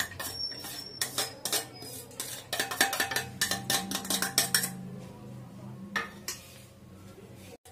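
Stainless steel bowls clinking and scraping as a chopped onion mixture is scraped out of one bowl into another. A rapid run of clinks goes on for about five seconds, then it quietens, with one last click about a second later.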